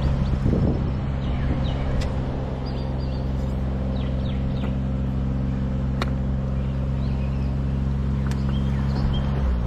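An engine idling steadily, its pitch stepping down slightly near the end, with birds chirping faintly.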